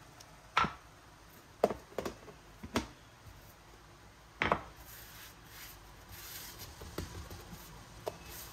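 Sharp knocks and taps on a kitchen work surface as bread dough balls are handled: about five knocks in the first four and a half seconds, then only faint taps.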